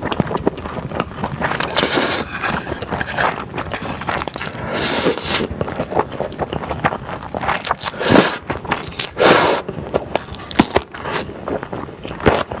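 Close-miked eating of spicy stir-fried glass noodles: wet chewing with many small clicks, broken by several loud slurps of noodles, at about two, five, eight and nine seconds in.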